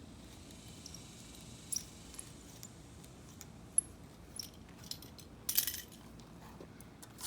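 Scattered light clicks and rattles from a window screen frame and spline roller tool being handled, with one sharp click about four seconds in and a short scraping rattle about a second and a half later.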